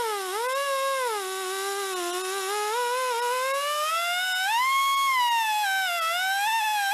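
Pneumatic die grinder whining steadily as its abrasive wheel grinds corrosion off the lip of an electric winch motor's end cap. The pitch sags as the wheel bites into the metal and climbs again as it frees up, over the hiss of exhaust air.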